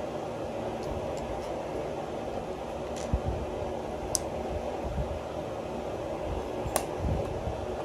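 Steady fan-like noise with a few sharp, separate clicks: about three seconds in, again about a second later, and near the end.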